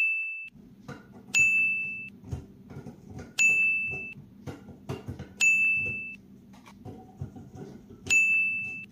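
A bright ding sound effect, struck five times about every two seconds, each chime fading within about a second. Between the chimes come faint clicks and knocks of bulbs being handled and fitted into a lamp.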